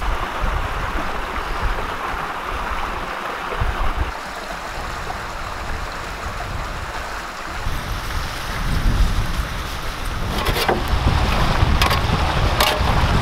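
Wind buffeting the microphone over a steady rush of creek water. The wind rumble grows stronger in the second half, and a few sharp clicks and rustles come near the end.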